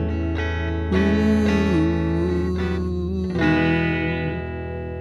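Rock music with guitar over a steady bass and a wavering held melody line. About three and a half seconds in, a final chord is struck and rings out, slowly fading.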